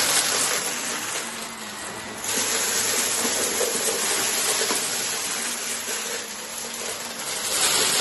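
Upright vacuum cleaner running with a steady rushing hiss and a faint hum, dipping and swelling in level a couple of times as it is moved over a rug.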